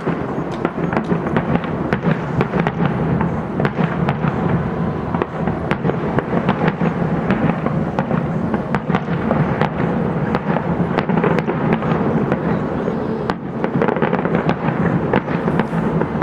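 Fireworks salute bursting in quick succession: a dense, unbroken run of bangs and crackles.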